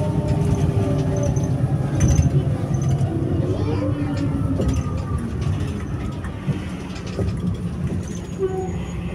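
Diesel engine of a Mercedes-Benz Conecto O345G articulated city bus running at idle: a deep steady rumble, with engine tones that slide upward briefly about three to four seconds in.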